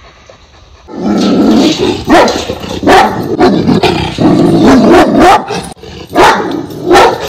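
Kangal dog barking over and over, starting about a second in.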